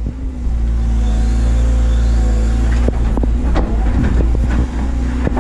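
Doosan DX180 excavator's diesel engine running steadily under working load, with a series of short clunks and knocks in the second half from the machine working.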